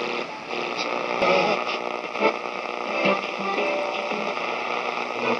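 1950s General Electric AM tube radio playing music from a station through its small speaker, with the narrow, tinny sound of AM reception, while its tuning dial is being turned.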